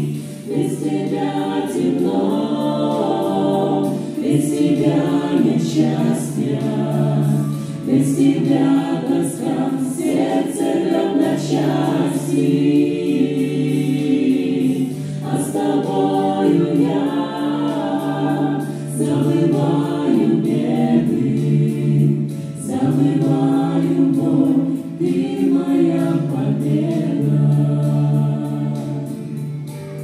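Mixed vocal group of men and women singing a gospel song in harmony into microphones, over sustained low accompanying notes.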